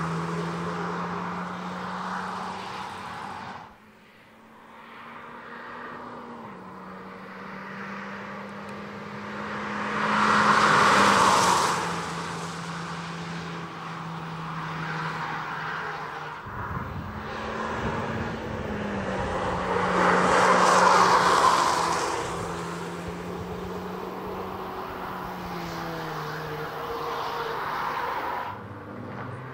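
Hyundai i20 N prototype's turbocharged four-cylinder engine driven hard on track, its pitch stepping up and down with gear changes. It swells loudly twice as the car passes close by, and the sound breaks off abruptly a few times where separate passes are joined.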